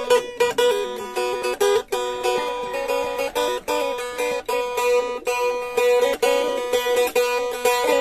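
Faglung, the Blaan two-string boat lute, played solo: a quick melody of plucked notes, several a second, over a steady repeated drone note.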